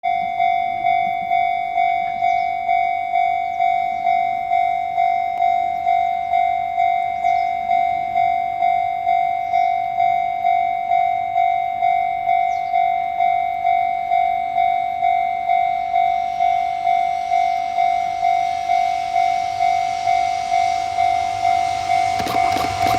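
Japanese level-crossing alarm bell ringing steadily, about two strokes a second. An approaching freight train hauled by an EF66 electric locomotive grows louder from about two-thirds of the way in and reaches the crossing just before the end.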